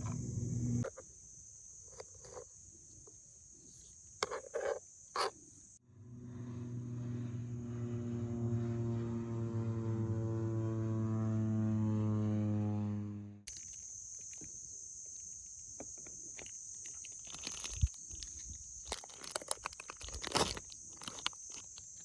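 Insects chirring with a steady high buzz. In the middle a low-flying crop-spraying plane's engine drones, growing louder as it approaches, then cuts off abruptly.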